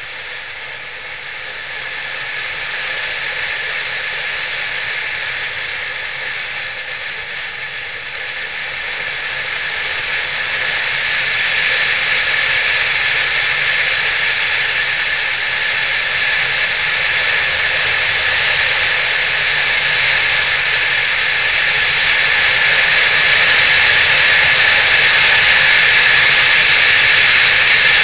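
Wind rushing over the microphone of a camera riding on a moving motorcycle, a steady roar with the engine faint underneath. It grows louder over the first ten seconds or so and again later on.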